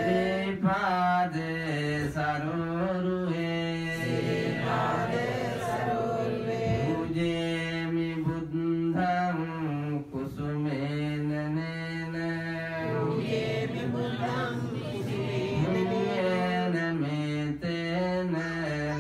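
Buddhist monk chanting in a slow, melodic style, holding long notes with gliding changes of pitch and pausing briefly between phrases.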